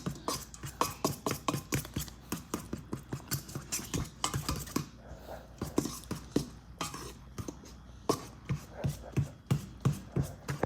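Fork beating cake batter in a mixing bowl, clicking and scraping against the bowl in quick, uneven strokes, with a short let-up about halfway through.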